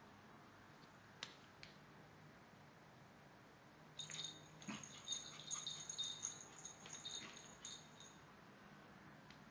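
A dog's metal collar tags jingling and rattling in a run of quick clicks with a light ringing, from about four seconds in for some four seconds, after two faint clicks a little over a second in.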